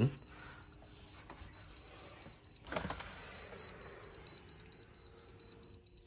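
A thump about three seconds in, then an electric motor whirring and fading over a couple of seconds, typical of a Tesla Model X's powered door and window closing. A faint, high, steadily pulsing beep runs underneath.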